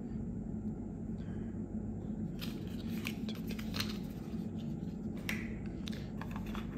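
Small plastic accessories and packaging being handled: scattered clicks and rustles over a steady low hum.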